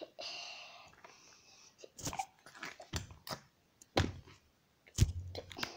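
Handling noise from a phone camera being moved about: a brief rustle, then a series of sharp knocks and bumps against the device.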